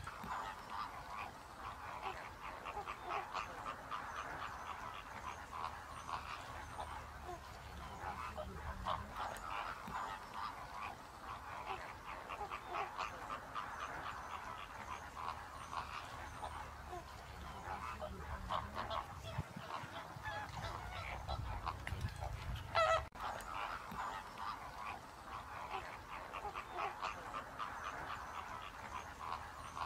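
A flock of greater flamingos calling, many short calls overlapping without pause, with one louder call about two-thirds of the way through.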